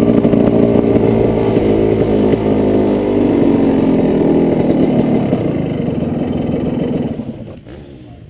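1997 TM Racing 250 Cross single-cylinder two-stroke engine running at low revs as the motocross bike rolls slowly along, its note wavering a little. About seven seconds in, the engine sound falls away sharply as the bike comes to a stop.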